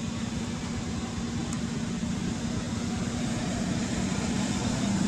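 A steady motor hum with an even background hiss that holds level throughout.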